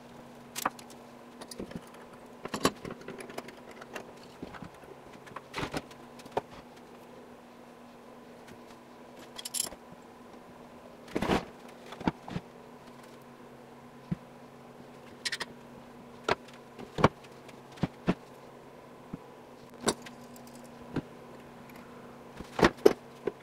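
Wooden blocks and a clamp being handled on a wooden workbench: scattered separate knocks and clicks as pieces are set down and worked, the loudest about halfway through and near the end, over a steady low hum.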